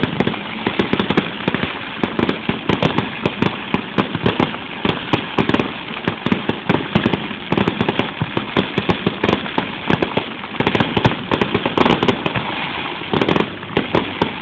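Aerial fireworks bursting in rapid succession: a dense, continuous string of bangs and pops, several every second, with no break.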